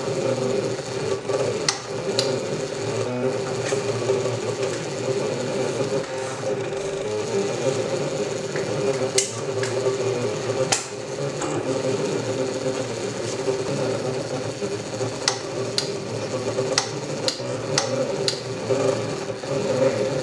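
MakerBot Cupcake CNC 3D printer running, its stepper motors whirring steadily, with scattered sharp ticks, several in quick succession in the last few seconds.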